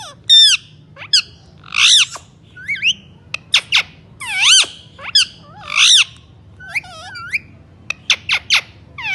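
Indian ringneck parrot calling: a rapid run of about a dozen short, shrill squawks and whistle-like calls that swoop up and down in pitch.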